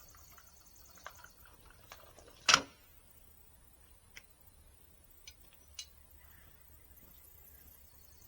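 Wooden boards being handled: one loud knock about two and a half seconds in, among a few light clicks and taps.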